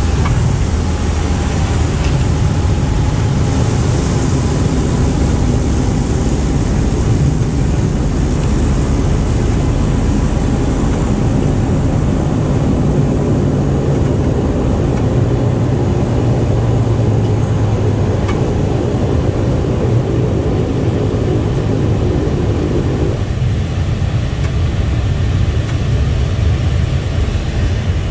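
Cessna 208B Grand Caravan's PT6A turboprop engine and propeller heard from inside the cabin, a steady, loud drone during the landing. About two-thirds of the way through, the higher part of the drone drops away suddenly, leaving a lower hum.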